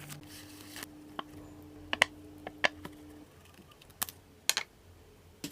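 A handful of sharp clicks and taps, irregularly spaced, over a faint steady hum that stops about three seconds in.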